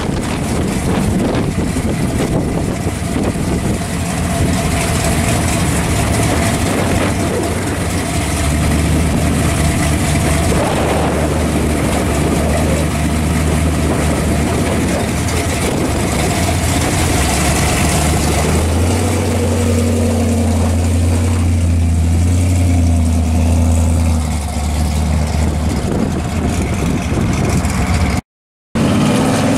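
Supercharged V8 of a blown pro street 1974 Camaro running at idle, a steady low rumble that grows deeper and stronger about two-thirds of the way through. After a brief cut near the end, the car is driving off.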